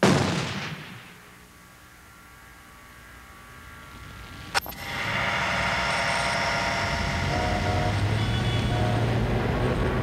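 A sharp crack about halfway through, then a steady rumble with a low hum and several held tones that runs on after it, opening an anti-car campaign spot.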